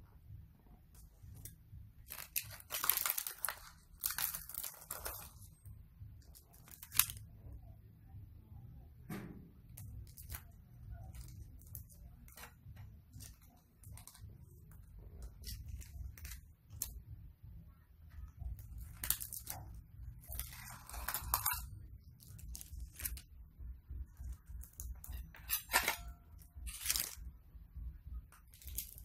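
Banana leaves crinkling and rustling as bibingka cakes are lifted out of small metal baking tins, in short irregular bursts, with an occasional clink of the tins, one sharp click about seven seconds in. A steady low hum runs underneath.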